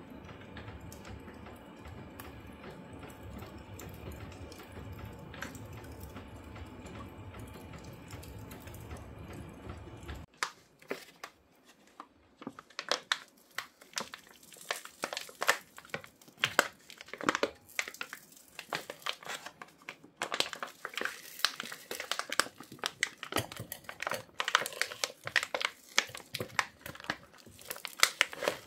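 Firewood burning in a cast-iron wood stove, crackling and snapping irregularly after more logs have been added to build up the fire. Before the crackling, a steady low rumbling noise stops abruptly about ten seconds in.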